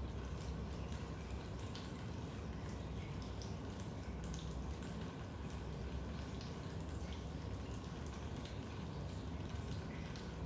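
Raindrops dripping into a basement: many small irregular drips and plinks over a steady low rumble.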